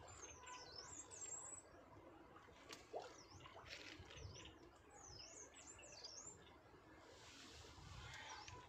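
Small birds chirping faintly: quick, high chirps that dip and rise in pitch, coming in several short runs.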